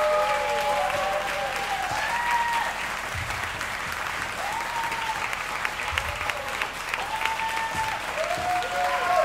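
Audience applauding steadily, with voices calling out over the clapping several times.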